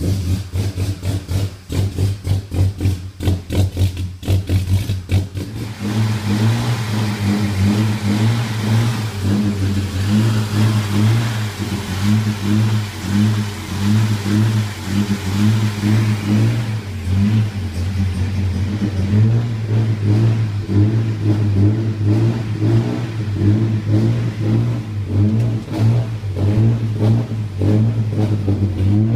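Plymouth Duster's 225 slant-six engine running on its newly fitted sequential fuel injection, through dual exhaust headers. For the first few seconds it runs with a slow, uneven pulsing, then from about six seconds in it settles into a higher, steadier running note that wavers slightly.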